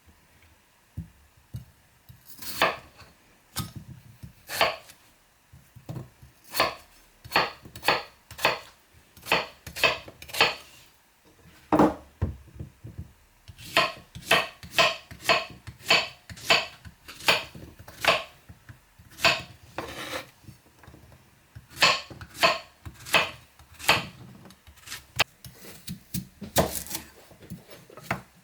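A knife chopping food on a cutting board: sharp strokes at about two a second, in runs broken by short pauses.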